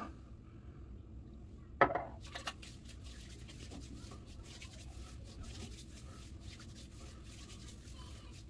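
Hands slapping and rubbing aftershave splash onto a freshly shaved scalp: one sharp slap about two seconds in, then soft, quiet rubbing and patting on the skin.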